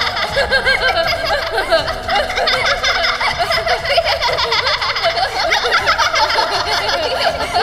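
A crowd laughing, many voices overlapping.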